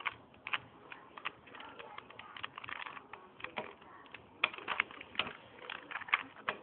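Rubik's Cube being turned by hand, its plastic layers clicking and clacking in quick, irregular runs of turns as a move sequence is worked through.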